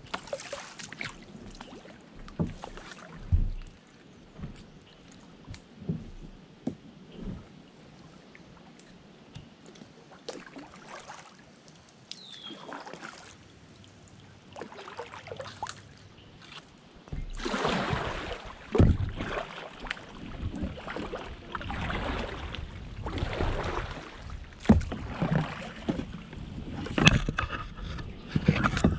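Kayak paddle strokes in shallow, still water: dripping splashes and occasional knocks, sparse and quiet at first, then louder and more regular paddling through the second half.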